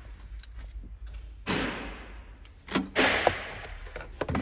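Work sounds while a hybrid battery is being removed: a few sharp knocks and two short scraping noises from tools and metal parts being handled.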